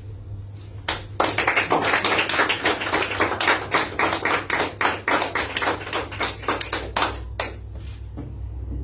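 A small audience applauding with individual hand claps. It starts about a second in and thins to a few last claps near the end.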